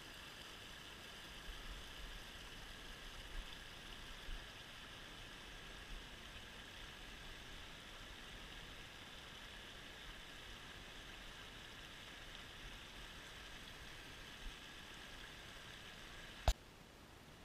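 Shallow creek riffle running over bedrock and stones: a steady, even rush of water. There are a few faint low bumps in the first few seconds, and a sharp click about a second before the end, after which the water sound cuts off suddenly.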